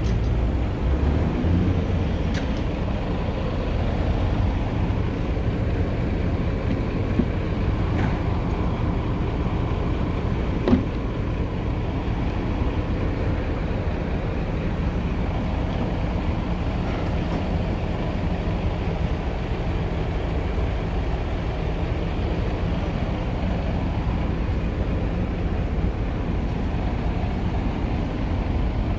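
Scania R tractor unit's diesel engine idling steadily. A single short click comes about ten and a half seconds in.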